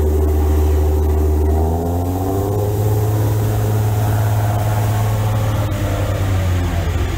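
Speedboat engine running hard alongside the ship, with rushing water from its wake; the engine note rises about two seconds in as the boat speeds up.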